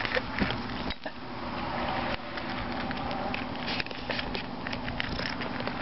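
Cats crunching dry food close to the microphone: a run of irregular sharp crunches and clicks.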